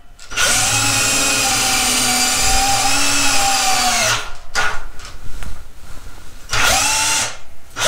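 SnapFresh 20V cordless drill on speed 2 boring a 1/2-inch hole in a wooden beam. The motor runs steadily for about four seconds with its pitch sagging slightly under load, then stops. It makes a couple of seconds of uneven, choppy sound, then one more short run near the end.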